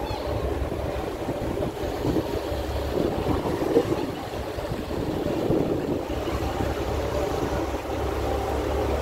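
Motor yacht under way: a steady engine rumble mixed with water rushing past the hull and wind on the microphone.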